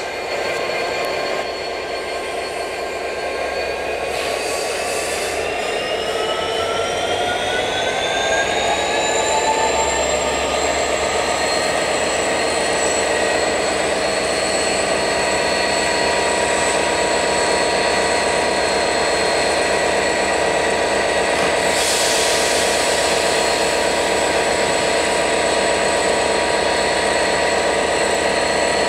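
GBRf Class 69 diesel locomotive 69008 powering up as it pulls away slowly. Its engine whine rises in pitch over several seconds and then holds steady, with one short sharp click about two-thirds of the way through.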